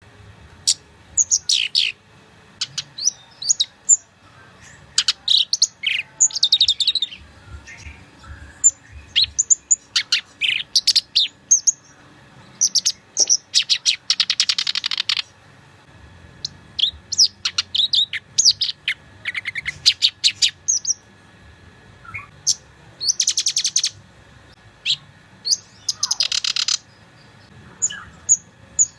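Black-browed reed warbler singing a fast, loud song of quick, varied chirps and phrases, broken several times by long rapid trills.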